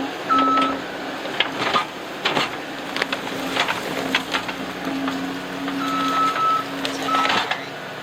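Case TR270 skid steer running as it works, with a steady engine tone, a higher whine that comes and goes three times, and many scattered knocks and clanks.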